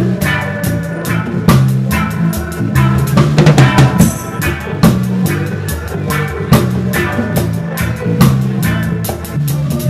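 Live reggae band playing, heard from beside the drum kit: the drums are loud and up front, their strikes falling in a steady rhythm over a bass line and other instruments.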